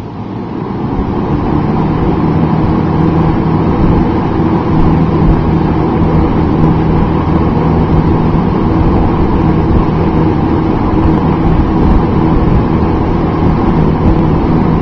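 Lakewood P-222 box fan running on high speed: the blades come up to speed over the first couple of seconds, then a steady rush of air over a low, steady motor hum.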